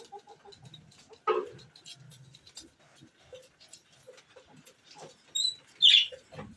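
A few short, sharp animal calls, the loudest near the end, among scattered faint clicks and rustles; no long crow.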